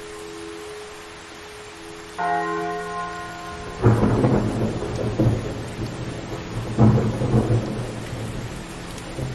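A heavy church bell tolling: a stroke fading at the start and a fresh stroke about two seconds in. About four seconds in, loud rumbling noise cuts in over the bell and swells twice.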